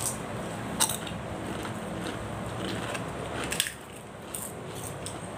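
A person eating with the fingers close to a clip-on microphone: quiet chewing and handling of food, with two sharp clicks, about a second in and past the middle.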